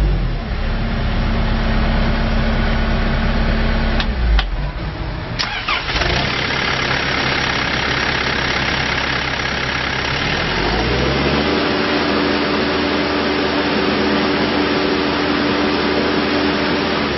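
Case 580N backhoe loader's diesel engine running, with a few sharp clicks or knocks about four to five seconds in. Around ten seconds in the engine speeds up, rising in pitch, and then holds a steady higher speed.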